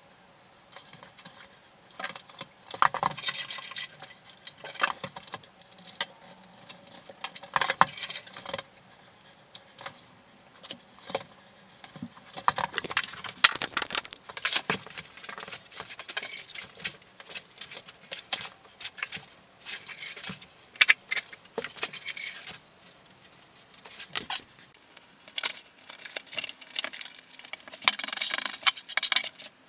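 Clattering and scraping of tile-grouting work: a grout float, bucket and tools handled on tile, in busy bursts of a second or two with quieter gaps between.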